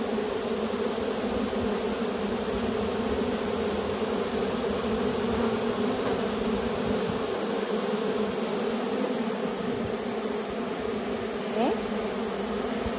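A large mass of honey bees, freshly poured from a package into a hive, buzzing with a low, even hum.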